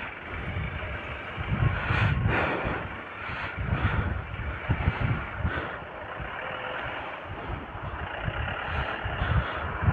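Hero XPulse 200 4V's single-cylinder engine running as the motorcycle rolls slowly in close traffic, heard as a steady engine noise with an uneven low rumble.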